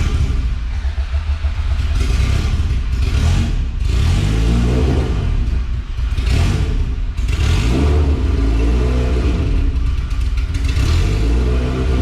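Honda LSV four-cylinder (B18 block with a VTEC head) running just after start-up, its idle speed wandering up and down as it hunts before settling. The throttle-body idle stop is being set so that the engine can idle on its own.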